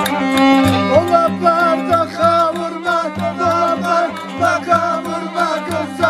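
Violin playing a lively Turkish Black Sea folk dance tune over a steady frame-drum beat, with men's voices joining in singing about a second in.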